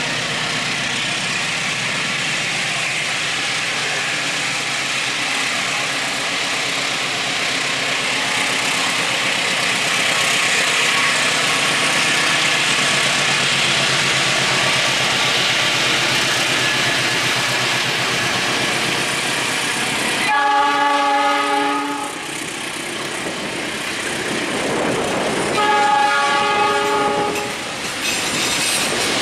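Trains running past at close range, a steady rush of wheels on rail that builds over the first several seconds. Then a train horn blows twice, a chord of several pitched tones each lasting under two seconds, the first about two-thirds of the way through and the second shortly after.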